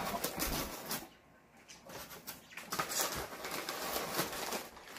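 Crumpled packing paper rustling and crinkling as it is handled and pulled out of a cardboard shipping box, with a brief quieter pause a little over a second in.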